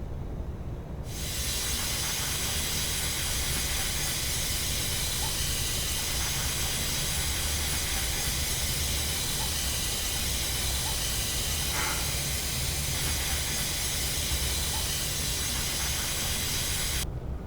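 A steady hiss of noise that starts abruptly about a second in and cuts off suddenly near the end, over a low steady hum.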